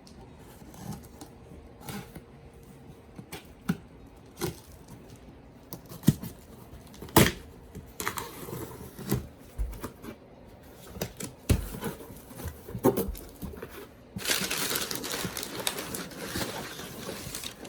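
A cardboard product box being opened by hand: scattered clicks and knocks of handling, with crinkling and tearing of packaging. A longer continuous tearing stretch lasts about three seconds near the end.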